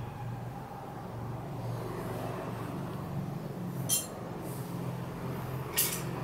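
Steady low background hum, with two short sharp clinks about two seconds apart in the second half.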